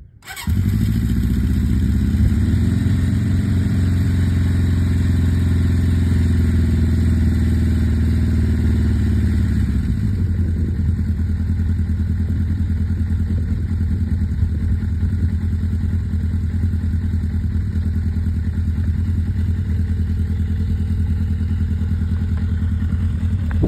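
A 1981 Honda CB750C's air-cooled inline-four engine cold-starting: it fires up right away and then idles steadily. The idle settles lower about ten seconds in.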